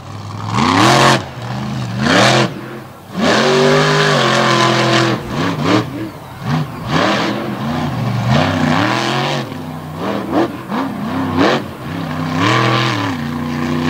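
Monster truck's Stauffer Racing engine revving hard again and again, its pitch climbing and falling every second or so as the throttle is worked on a freestyle run.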